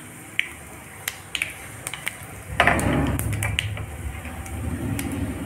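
Whole spices (mustard seeds, cumin and fennel) crackling in hot oil in a small pan, with scattered sharp pops. About halfway through, a louder low rushing noise comes in and carries on.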